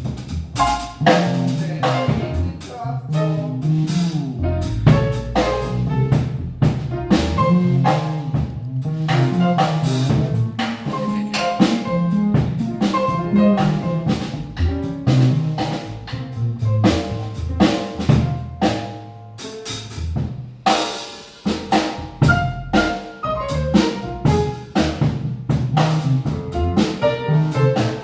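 Piano, double bass and drum kit trio playing, with busy drumming on snare, bass drum and rimshots over piano notes and a moving bass line. The music drops briefly about two-thirds of the way through, then comes back with a cymbal crash.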